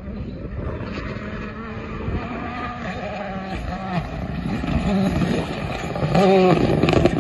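Rally car engine approaching at speed on a gravel stage, growing louder, its revs rising and falling about six seconds in.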